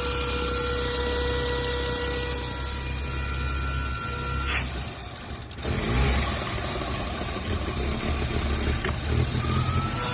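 BMW N55 turbocharged straight-six idling, with a steady whine from the air intake: the weird intake noise in question. About halfway through there is a click, and the hum and whine dip for about a second before coming back.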